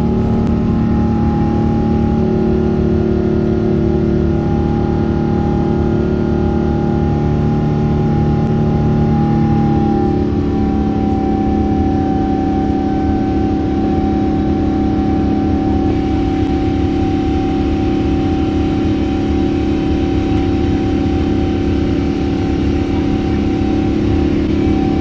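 Airliner jet engines heard from inside the cabin: a steady loud drone with several held tones over a low rumble, the tones shifting in pitch about ten seconds in as the engine setting changes.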